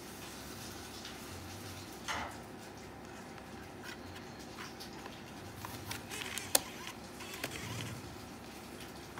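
Handling noise of a DVD disc and a handheld phone camera: a soft knock about two seconds in as the disc is laid on the table, then scattered light taps and scrapes with one sharp click about six and a half seconds in, over a steady background hiss.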